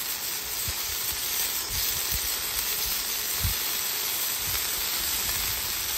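Corn tortilla tacos shallow-frying in oil on a flat-top griddle: a steady sizzling hiss, with a few soft low bumps.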